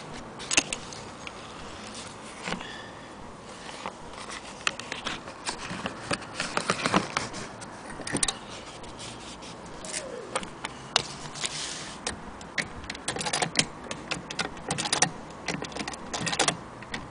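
Irregular clicks, knocks and scraping from handling a stiff stitched leather piece as it is turned and moved about, with no steady rhythm. The busiest stretches are a few seconds in and again near the end.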